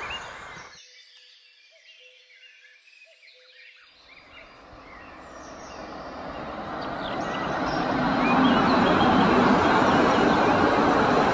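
An electric-locomotive-hauled passenger train approaches and runs past close by. Its rumble grows from about four seconds in, peaks near eight seconds, then becomes the steady clatter of carriage wheels on the rails. Before it, the noise of a receding train fades away, and birds chirp during the quiet moment in between.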